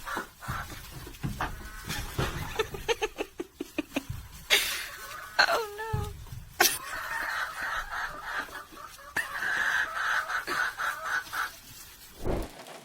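Farm animal calls mixed with scattered knocks and handling noise, including a wavering animal call about five and a half seconds in.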